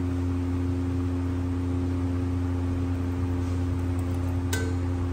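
A steady low hum, like a motor or fan, with a short click about four and a half seconds in.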